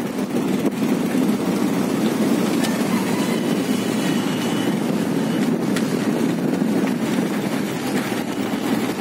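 Motorcycle engine running steadily under way, heard from the rider's seat, with road noise.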